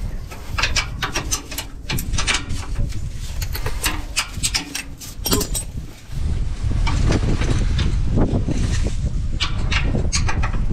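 Socket ratchet clicking in short runs while loosening the 9/16 bolts of a van's transmission crossmember, over a low background rumble. About six seconds in the rumble turns steadier and louder, with a few more clicks near the end.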